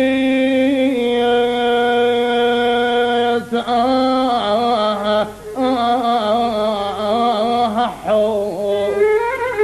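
Iraqi rural (rifi) song music: a single melodic line holds long, steady notes for about three seconds, then moves into an ornamented, wavering passage with short breaks.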